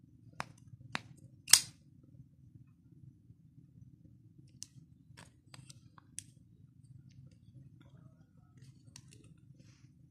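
Deresrina X71 knuckle-handle flip-open folding knife being worked by hand: a series of sharp metallic clicks from the blade and its lock, the loudest about a second and a half in, then quieter clicks a few seconds later and again near the end. A faint low steady hum runs underneath.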